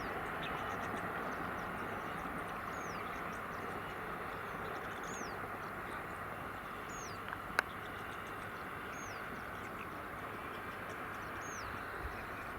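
Open-air trackside ambience: a steady hiss with a bird repeating a short falling whistle about every two seconds, and one sharp click about halfway through.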